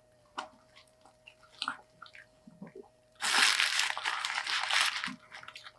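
Faint chewing and mouth clicks, then, about three seconds in, a loud crinkling of paper fast-food packaging that lasts about two seconds.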